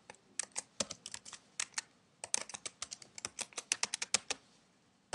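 Typing on a computer keyboard: an uneven run of keystrokes lasting about four seconds, then a pause and a single key or button click near the end.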